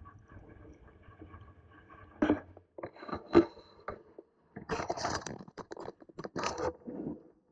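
Paddle strokes and water splashing around a Prijon SeaYak sea kayak: a series of irregular splashes and knocks, the loudest about two, three and a half, five and six and a half seconds in.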